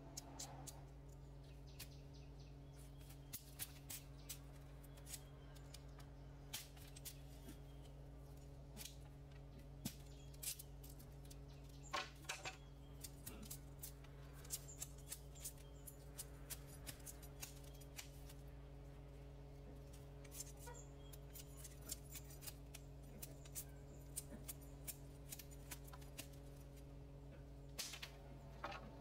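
Irregular sharp clicks and snips of bamboo being cut and worked by hand, some louder than others, over a faint steady low hum.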